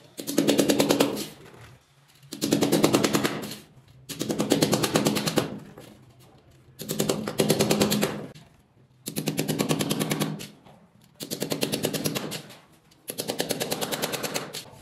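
Bursts of rapid hammer blows driving fasteners through a metal ceiling wall angle into a concrete wall. There are seven bursts, each about a second and a half long, with short pauses between.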